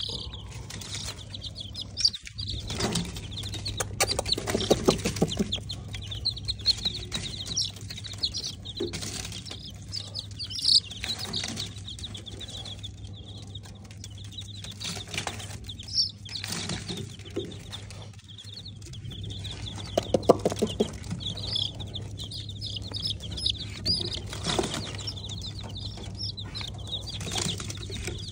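Four-day-old baby chicks peeping constantly in rapid, high cheeps, with scattered knocks and rattles from their wooden wire-mesh cage being handled.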